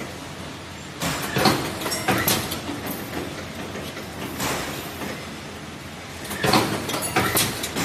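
Cabinet-hinge spring making machine running, a steady mechanical noise with two spells of sharp metallic clattering, one about a second in and another about six and a half seconds in.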